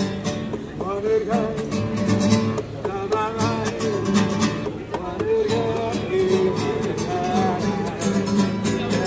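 Acoustic guitar played live, with a voice singing a wavering melody over it.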